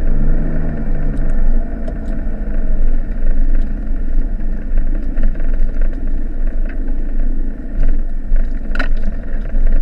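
Cabin of a 1995 Mitsubishi Delica 2.8 turbodiesel driving along a rough, muddy green lane: a steady engine and tyre rumble with scattered knocks and rattles from the body and suspension, the sharpest a little before the end.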